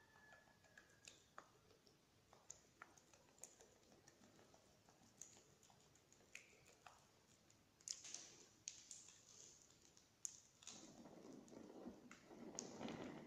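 Near silence with faint, scattered small clicks and ticks, and a soft rustle in the last couple of seconds.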